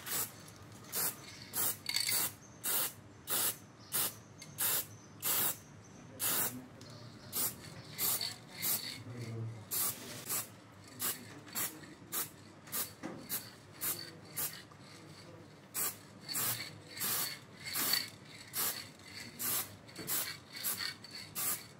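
Aerosol spray-paint can sprayed in short, quick bursts, about two a second, each hiss starting and stopping sharply.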